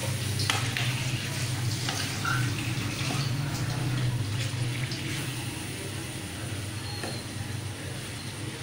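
Chicken and chopped tomatoes simmering and sizzling wetly in a karahi while being stirred with a metal spoon, with scattered scrapes and taps of the spoon against the pan over the first few seconds.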